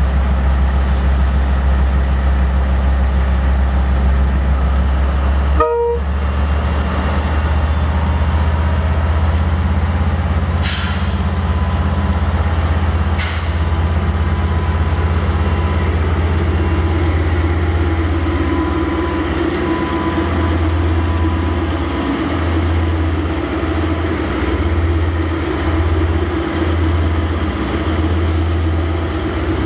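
KiwiRail DL-class diesel-electric locomotive idling close by: a steady low engine rumble that pulses unevenly in the last third. A brief break comes about six seconds in, and two short hisses come around eleven and thirteen seconds in.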